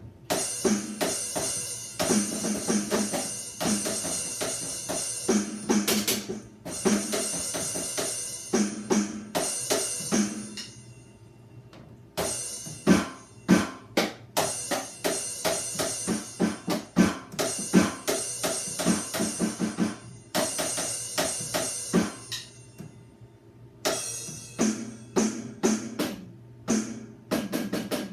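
Drum beats: fast runs of sharp drum and cymbal hits, broken by two short breaks about ten and twenty-two seconds in.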